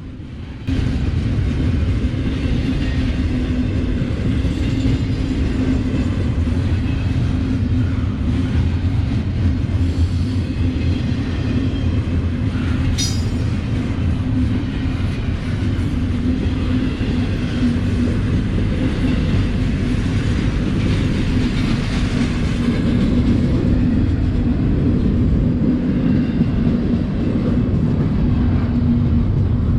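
Freight train rolling past: a steady rumble of wheels on rail with a steady low hum running underneath. It starts abruptly just under a second in, and a single sharp click stands out about 13 seconds in.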